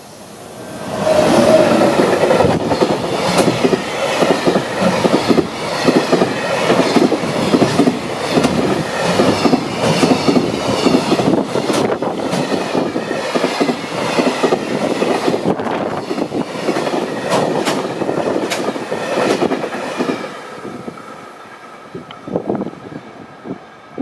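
A JR Freight train hauled by an EF210 electric locomotive runs through a level crossing, its wheels clattering over the rail joints. The noise rises sharply about a second in, holds loud for around twenty seconds as the wagons pass, then fades, and the level crossing's warning bell rings on near the end.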